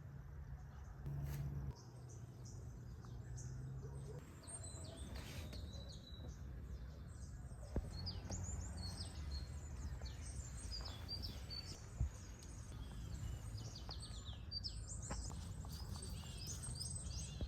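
Many small birds chirping in quick, short, overlapping calls, thickening about four seconds in, over a low steady rumble. Two sharp clicks stand out partway through.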